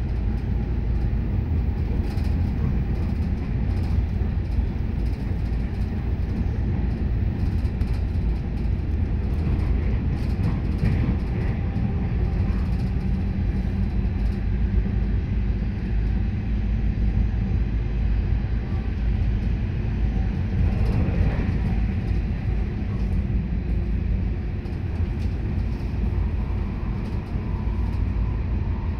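Stadler GTW-D diesel-electric railcar under power, heard from inside the passenger cabin next to its engine module. The diesel engines run hard with the electric traction motors, over a steady low rumble of the wheels on the rails.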